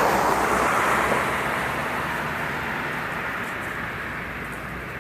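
Steady rushing outdoor noise, the kind made by street traffic or spraying water, fading out slowly after about a second.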